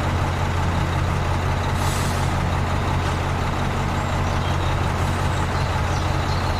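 A motor or engine running steadily with a deep hum under a hiss. It stops abruptly with a click at the very end.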